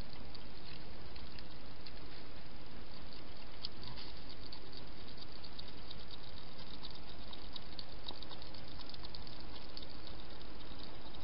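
A wild hedgehog chewing at a feeding bowl, a quick irregular run of small smacking clicks that is thickest through the middle, over a steady hiss from the microphone.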